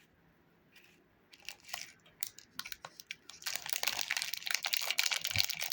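Plastic lollipop wrapper being torn and crinkled open: a few sharp crackles about a second in, then dense, continuous crinkling over the second half.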